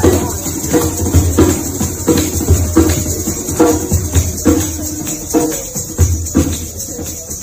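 Djembe played in a fast, even rela rhythm imitating a train, deep bass strokes alternating with higher ringing tone strokes, over the jingle of kathak ghungroo ankle bells.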